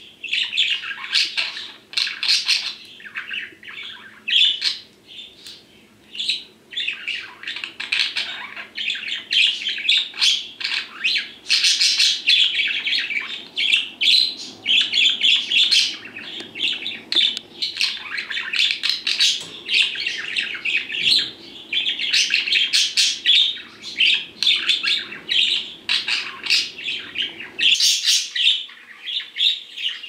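Male budgerigar chirping in a rapid, almost unbroken stream of calls, with a quieter spell a few seconds in. These are the calls of a budgie separated from its cage mate, which it shows as nervous at being alone.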